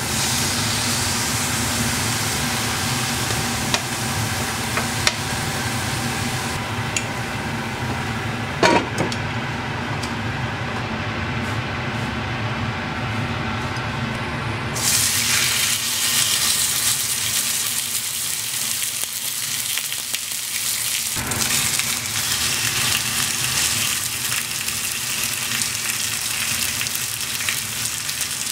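Food frying in a hot pan, a steady sizzle with a few light clicks. About halfway through, the sizzle suddenly gets much louder and hissier, as when more food goes into the hot oil.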